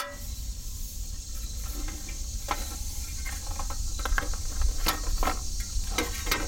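Steady insect chirring in the background, with a few scattered clicks and knocks as a portable butane camp stove and its plastic cover are handled.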